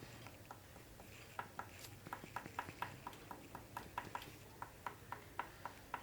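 Black oil pastel stick working on paper in short strokes, heard as faint, quick ticks at roughly three or four a second.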